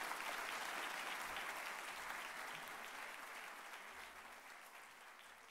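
Audience applauding, a steady patter of clapping that gradually fades away.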